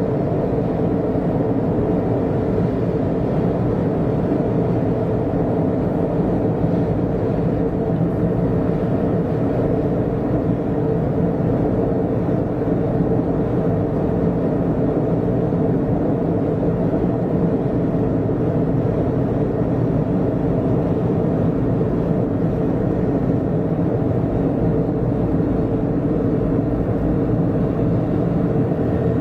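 Steady road and tyre noise with engine hum inside a car's cabin, cruising at a constant speed on an expressway.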